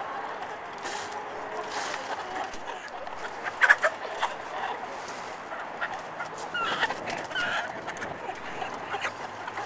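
Caged chickens clucking over a steady background hum. There is a sharp, loud call a little over a third of the way in and a few shorter calls about two-thirds of the way through.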